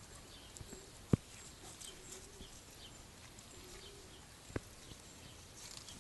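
Faint scuffling of two Rottweiler puppies play-wrestling on gravel, with two sharp knocks: a loud one about a second in and a weaker one about three and a half seconds later.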